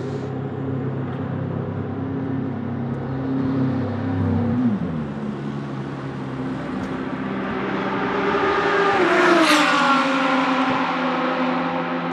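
McLaren 720S GT3's twin-turbo V8 running at low pit-lane speed with a steady note, dropping in pitch about four and a half seconds in. It grows to its loudest as the car goes by close about nine seconds in, its pitch falling as it passes.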